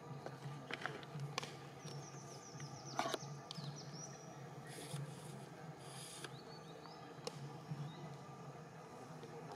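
Forest ambience: a low steady hum with high chirps, including a quick run of chirps about two seconds in. A few sharp clicks sound over it, the loudest about three seconds in.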